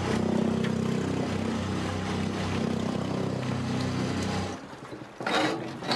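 Small boat's outboard motor running at a steady speed, pushing a pontoon across the reservoir. About four and a half seconds in the engine sound cuts off and a surge of rushing noise follows.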